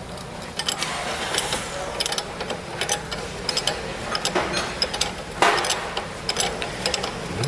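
Irregular metallic clicks and clinks of a 17 mm wrench and a 6 mm Allen key working the upper nut of a front stabilizer link, loosening it. A brief scraping rasp comes about five and a half seconds in.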